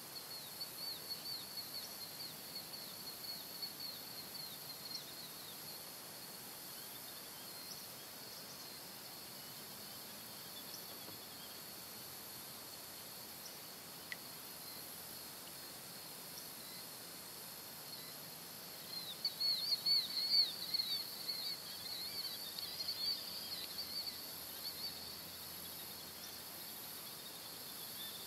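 A small bird sings in two bouts of quick, high, downward-sweeping chirps, one in the first few seconds and a louder one about two-thirds of the way through. Under it runs a steady high insect drone.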